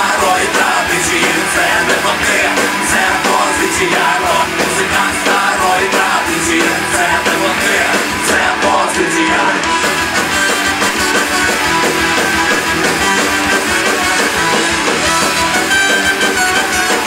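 Ska-punk rock band playing an instrumental passage live: electric guitar and drums, with a trombone playing near the end.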